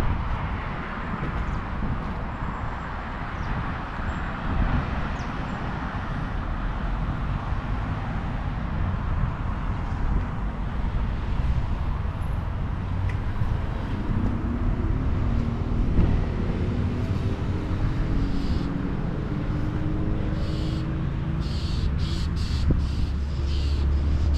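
Outdoor ambience with a steady low rumble. An engine-like hum comes in and rises in pitch over the last ten seconds, as of a motor vehicle nearing. Short repeated high ticks appear near the end.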